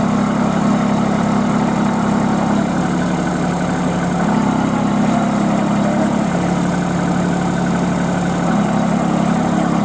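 Kubota B2441 compact tractor's three-cylinder diesel engine running under heavy load in deep mud. Its speed drops and picks up again a few times as the 4WD tractor struggles through.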